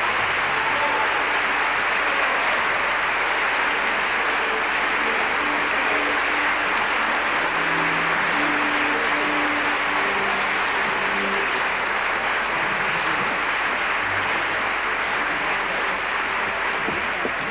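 Theatre audience applauding steadily after a ballet variation.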